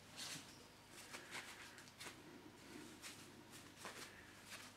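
Faint handling sounds of a rubber foot being pushed onto the end of a steel table-saw stand leg: scattered light clicks and rubbing.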